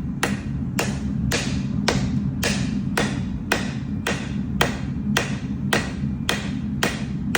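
Hand hammer striking hot steel on an anvil in a steady rhythm of just under two blows a second, drawing out a knife blade.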